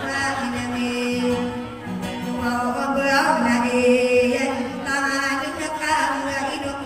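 A woman singing long, wavering held notes into a microphone, accompanied by a small guitar.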